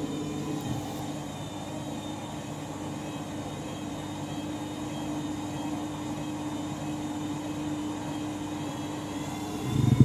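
Front-loading washing machine drum spinning during an interim spin: a steady motor hum with a faint, slightly wavering higher whine over it. A single loud thump right at the end.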